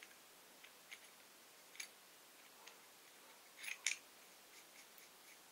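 Faint metallic clicks and ticks of a knurled screw cap being fitted and threaded onto a nickel-plated brass rifle oil bottle, with a louder pair of clicks a little under four seconds in.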